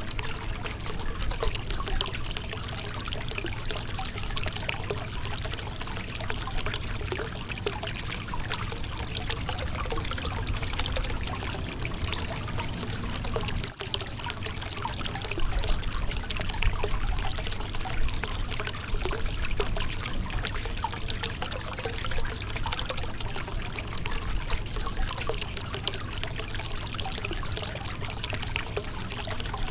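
Shallow river water running and splashing over a rocky bed: a continuous rushing trickle full of small rapid splashes, with a brief dip about halfway through.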